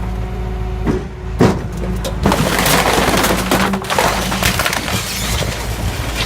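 Discarded furniture being crushed: a couple of sharp knocks, then about four seconds of wood cracking and splintering as it gives way, over the steady low running of a machine's engine.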